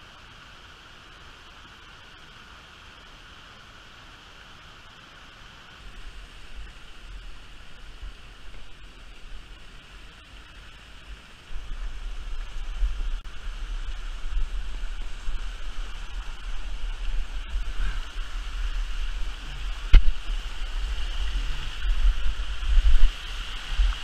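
Rushing water of a mountain river cascade, a steady hiss. From about six seconds in, a deep rumble on the microphone joins it and grows louder a few seconds later, with one sharp knock near the end.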